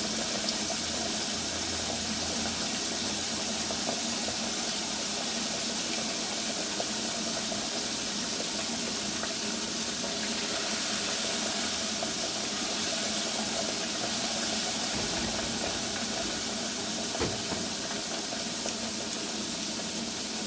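Food frying in hot oil: a steady sizzle with a few faint pops and clicks.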